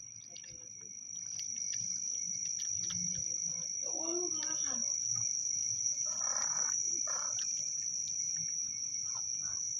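Crickets trilling steadily in one high, continuous tone. Faint short clicks run through it, from a cat crunching dry kibble.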